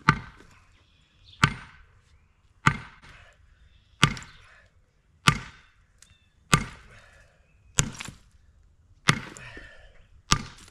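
Sledgehammer striking the protruding tongue of a precast concrete block, nine heavy blows about one every 1.3 seconds, knocking the tongue off.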